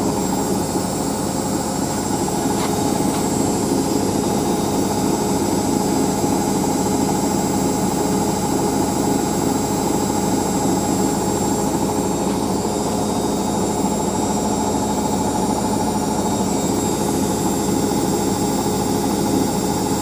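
Front-loading washing machine on a fast spin cycle: a steady motor and drum hum with a constant high whine.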